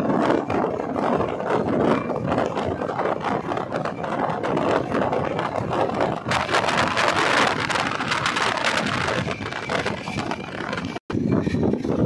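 Express train running at speed, heard from a window: a steady rumble and clatter of wheels on the rails, mixed with wind. The hiss grows brighter for a few seconds in the middle, and the sound cuts out for an instant near the end.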